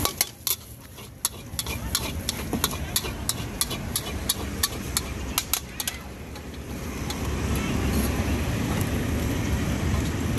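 Metal spatula striking and scraping a steel wok while fried rice is stir-fried, a quick run of clinks, about three or four a second, for roughly six seconds before they thin out. Underneath, a low street rumble of traffic grows louder in the later part.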